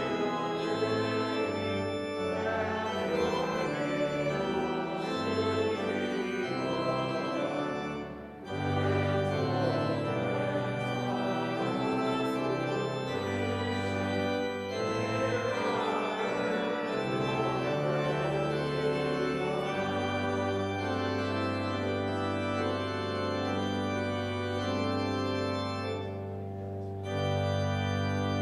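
Organ playing sustained full chords over a moving bass line, with a brief break about eight seconds in and a softer passage near the end before a final loud chord.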